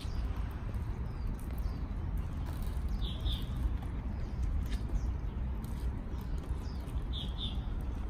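A small bird's short two-note chirp, heard twice about four seconds apart, with a few fainter chirps between, over a steady low rumble.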